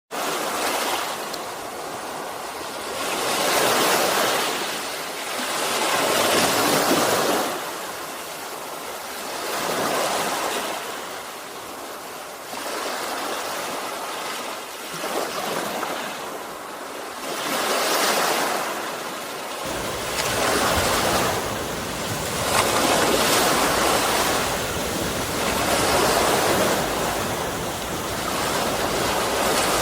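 Sea waves breaking and washing on the shore, the surf swelling and ebbing every two to three seconds. From about two-thirds of the way through, a low rumble joins underneath.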